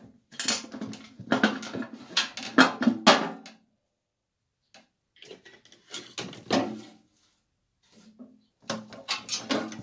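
Sheet-steel base panel of a microwave oven being pried up with a screwdriver: metal clattering and scraping in three bursts, the first and longest near the start.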